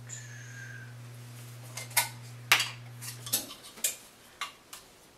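A measuring spoon clinking and tapping as baking powder is measured out: a string of sharp clicks. Under it runs a steady low hum that stops about three and a half seconds in.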